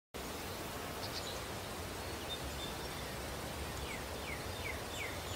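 Outdoor ambience: a steady background hiss with a low rumble, and from about four seconds in a bird giving a run of short falling chirps, about three a second.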